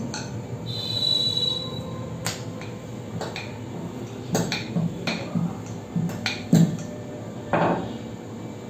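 Wooden rolling pin rolling dough on a stone countertop, knocking against the stone in a run of sharp, irregular clicks, the loudest about six and a half seconds in.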